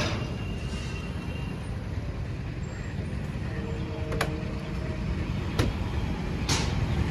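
Steady rumble of engines and road traffic, with motorcycles passing. Two sharp clicks come about four and five and a half seconds in, and a short whoosh near the end.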